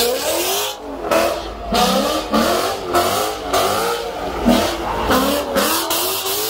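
Car engine revving hard, its pitch climbing and falling again and again in quick swings.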